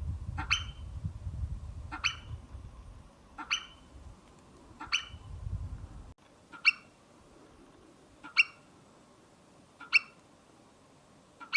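Forest-steppe marmot calling: a series of short, sharp whistles, one about every second and a half, eight in all. A low rumble underneath stops suddenly about six seconds in.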